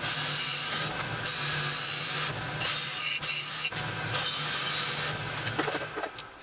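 Motor-driven wire brush wheel scouring rust off the iron parts of an old kitchen scale: a steady motor hum under a harsh scratching hiss that swells and eases as the parts are pressed to the wheel. Near the end the brushing and hum fall away.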